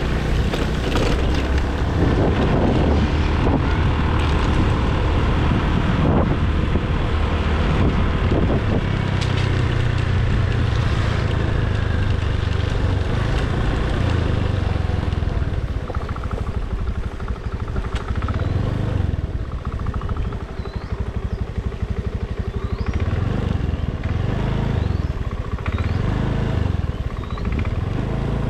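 Small motor scooter engine running steadily at low riding speed, with tyre and wind noise as it rides through shallow muddy water.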